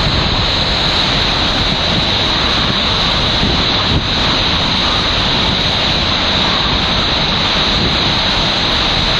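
Hurricane-force wind and wind-driven rain in the eyewall of a Category 3 hurricane, a loud, steady rush.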